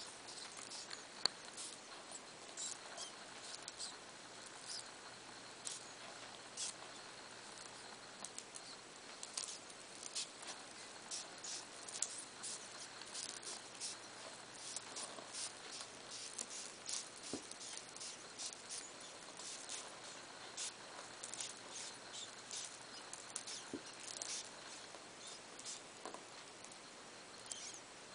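Faint, irregular high-pitched ticking and rustling, several small clicks a second, from two African pygmy hedgehogs mating, over a steady low hiss.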